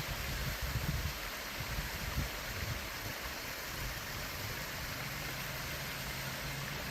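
Mountain stream water rushing steadily over rocks, with an uneven low rumble in the first few seconds. A faint steady low hum joins about halfway through.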